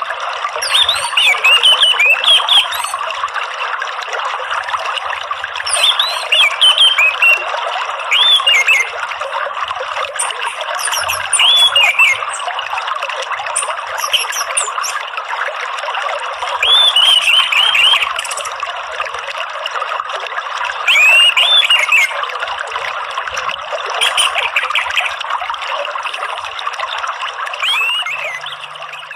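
Orange-headed thrush (anis merah) singing short whistled phrases that rise and fall, one every three to five seconds, over a steady sound of flowing water. It fades out near the end.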